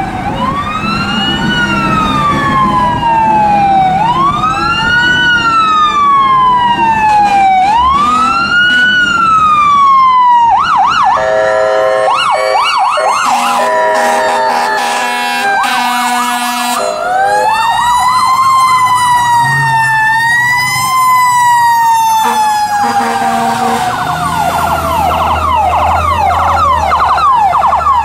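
Ambulance electronic siren passing close by: a slow rising-and-falling wail that switches about ten seconds in to a rapid yelp with blasts of a horn, then back to a wail. Near the end a second siren yelps over the first as another emergency vehicle follows, with an engine rumbling underneath.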